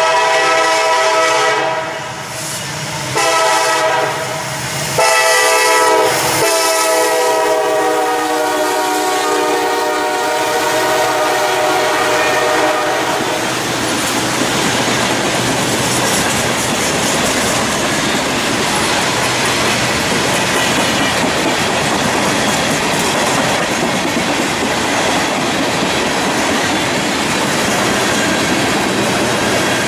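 Freight train's locomotive air horn sounding for a grade crossing in three blasts: one at the start, a short one about three seconds in, and a long one from about five seconds in, held until about thirteen seconds in. Then the freight cars roll past, their wheels clacking over the rail joints.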